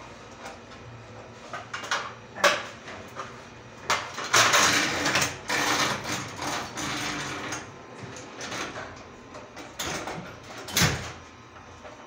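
Scattered metallic clicks and knocks from a hand tool working on a door closer's arm, with a louder stretch of scraping noise in the middle lasting a few seconds.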